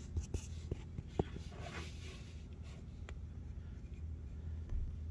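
Faint handling noise while the camera is moved around the engine bay: a few light clicks and a brief rustle over a steady low hum.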